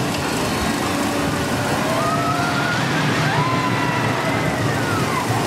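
Loud, steady amusement-park din of ride machinery and crowd, with a few rising and falling voice-like calls in the middle.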